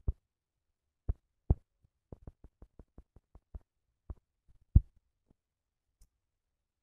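Fingertip taps on a smartphone touchscreen, heard as short dull knocks through the phone's own microphone: a few single taps, then a quick regular run of about ten taps, then a few more, the loudest about three quarters of the way through.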